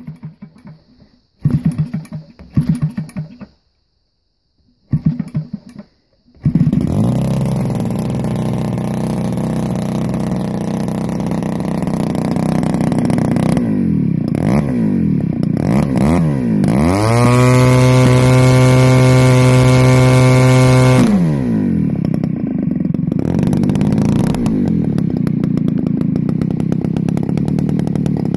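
OS Max BGX-1 single-cylinder two-stroke model engine, converted to run on gasoline with spark ignition and swinging a 20x8 APC propeller. It fires in a few short bursts before catching about six seconds in, then runs steadily. The throttle is blipped up and down, held at full throttle for about four seconds, and brought back to a lower steady speed, the engine running cleanly through idle, transition and top end.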